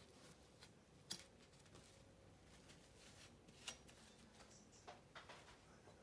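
Near silence with a few faint, sharp clicks and taps of small art tools being handled and set down on a work table, the clearest about a second in and just under four seconds in.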